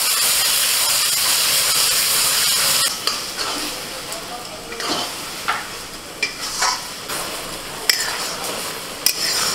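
Pieces of goat liver frying loudly in hot oil and masala in a metal kadai just after going in, then a flat spatula stirring and scraping the pan. After about three seconds the sizzle drops lower and a series of scrapes and clicks of the spatula on the metal comes through.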